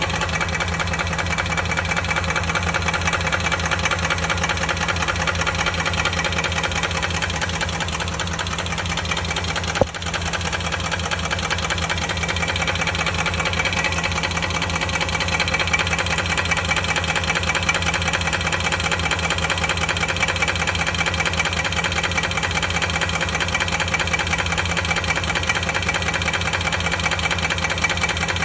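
2003 Dodge Durango's 4.7-litre V8 idling steadily with a fast, even tapping in time with the engine. This is the noise the owner is asking about after rebuilding the heads with new lifters and timing chain. A single sharp click sounds about ten seconds in.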